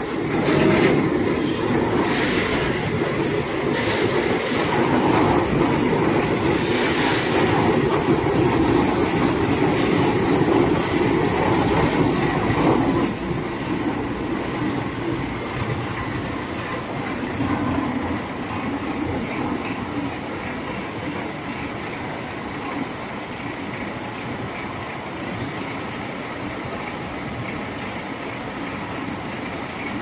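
Potato brush washing-and-drying machine running, with a steady high whine over its rumble. For roughly the first dozen seconds potatoes tumble and knock onto its steel feed grate; after that the machine runs on alone, quieter.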